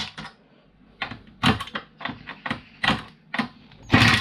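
Irregular clicks and knocks of metal and plastic parts as screws are released from a fuse board, then a drill whirs briefly near the end.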